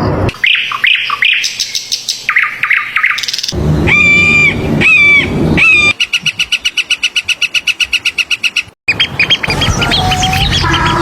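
Several different bird calls in quick succession, with abrupt changes between them: rapid chirps, then a repeated whistled call, then a fast, even trill, then more chirping.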